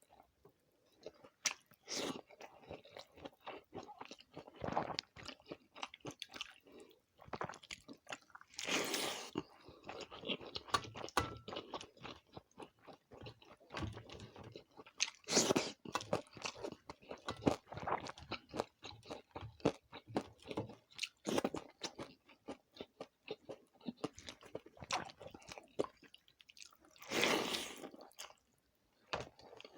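Close-miked eating of water rice (pakhala) with side dishes: a steady run of wet chewing and mouth smacks mixed with crunching. Several louder, longer noisy bursts stand out.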